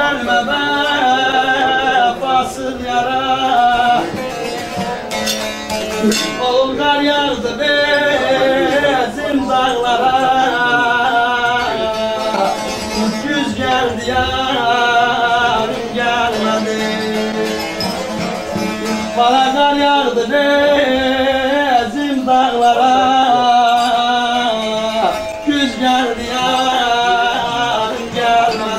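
Two bağlamas (long-necked Turkish saz) playing an instrumental passage: a quick, ornamented melody over a steady drone string.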